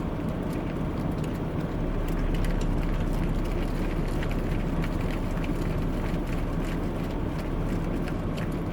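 A vehicle's engine and road noise running steadily, with many small sharp clicks and taps scattered over it.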